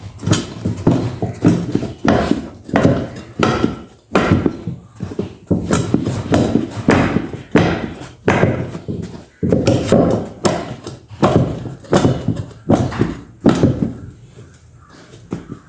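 Repeated hard knocks on a motorcycle wheel as the tyre and inner tube are worked onto the rim, about two strikes a second, stopping near the end.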